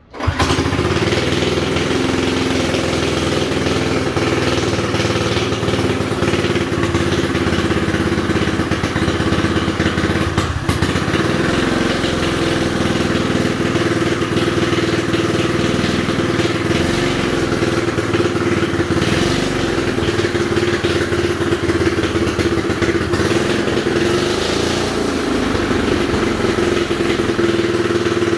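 Go-kart engine coming on suddenly and running steadily at idle, its speed dipping and rising slightly a few times.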